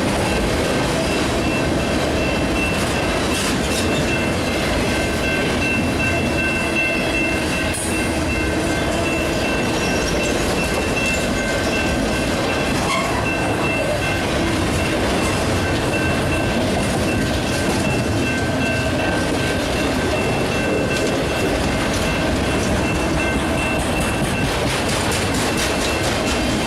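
Long intermodal freight train's cars rolling steadily past, with wheels clattering over the rail joints and a thin, steady high-pitched ringing over the rumble.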